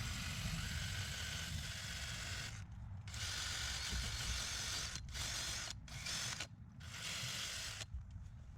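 Drill spinning a wire wheel brush against the threaded pipe stub coming out of the wall, cleaning the threads. It runs steadily in several stretches with brief pauses and stops about a second before the end.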